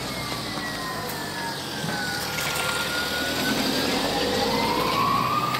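Police vehicle siren wailing slowly: it falls in pitch and then climbs again, getting louder toward the end, over the running of a heavy vehicle driving past close by.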